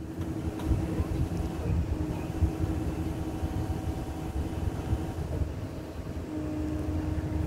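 Pickup truck engine running under load as it pulls forward with the boat trailer, a low uneven rumble that picks up right at the start.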